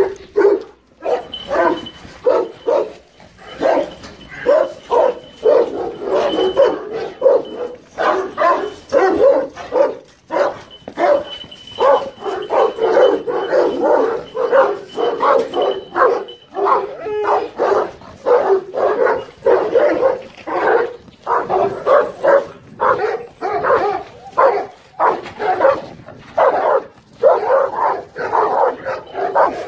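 Large Anatolian shepherd dogs (Kangal type) barking at one another, deep barks over and over at about two a second with no let-up.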